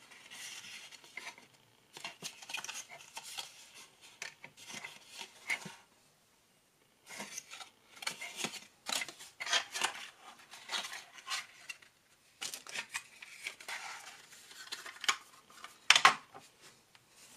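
A plastic cassette case and its paper index card being handled: the card rustling and scraping as it is slid out, with irregular clicks and rubbing of the hard plastic case, in several short spells with pauses between. A sharper click about a second before the end as the cassette is set down on the wooden table.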